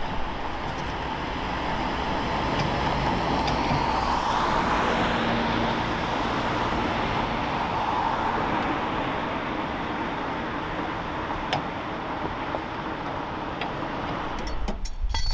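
Steady motor-vehicle noise, swelling for a few seconds in the middle and easing off again, with a few light clicks.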